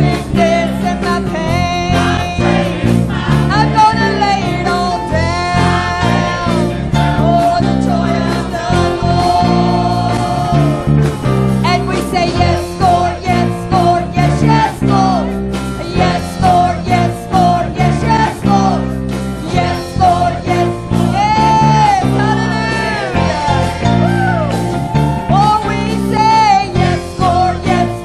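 Live gospel worship music from a church band: a wavering lead melody over sustained chords and a steady bass, with a rhythmic accompaniment.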